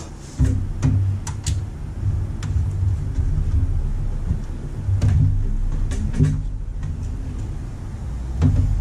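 A few light clicks and taps, metal on metal, as hands fit small screws at the back of a steel PC case, over a steady low rumble.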